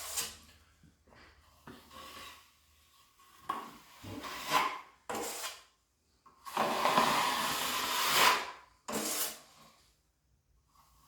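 Drywall knife scraping and spreading joint compound in a series of strokes, the longest about two seconds in the second half.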